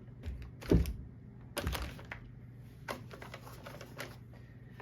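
Irregular knocks, taps and a low thump of cardboard firework cake boxes being handled and set down, the loudest a little under a second in.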